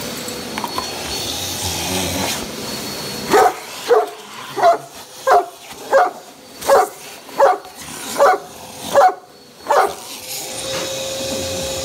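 A Great Dane barking, ten deep barks about one and a half a second, starting a few seconds in. Before the barking, a shop vacuum's steady whir.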